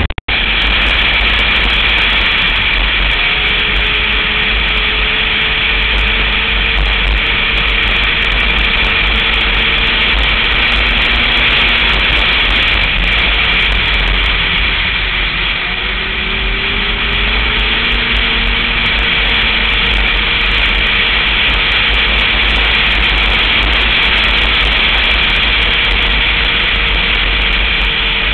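Snowmobile engine running at trail speed, heard from the rider's seat under a heavy rush of wind on the microphone. The engine briefly eases off about halfway through, then pulls again.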